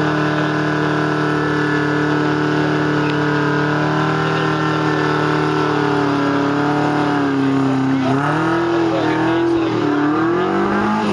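Rock buggy's engine pulling steadily at an even pitch as it crawls up a steep rock slab, then dropping and revving up and down in several quick swells over the last few seconds.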